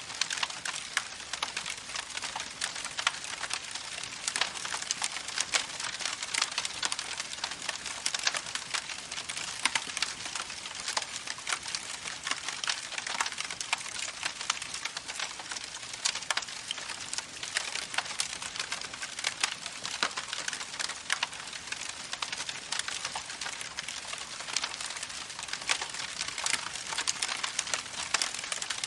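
Campfire crackling, with many sharp pops over the steady rush of a creek running.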